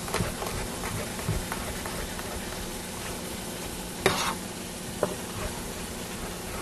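Onions sizzling in a pot as a steady hiss, with a few scattered knocks of a chef's knife chopping garlic on a cutting board, the sharpest about four seconds in.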